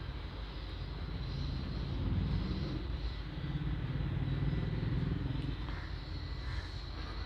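A vehicle engine running somewhere off the bench, a low pulsing rumble that grows louder about two seconds in and fades again after about five seconds, over a faint steady high whine.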